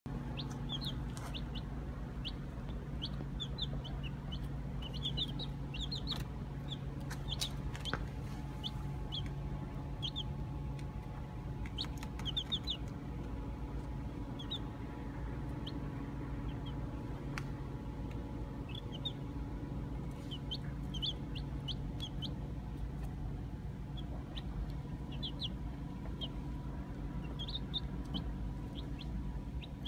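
Baby chicks peeping: short, high peeps scattered throughout, some in quick runs of two or three. A steady low hum runs underneath.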